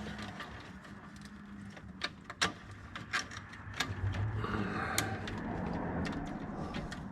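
Irregular sharp clicks and clatter of parts and tools being handled during hands-on wiring work, over a low hum.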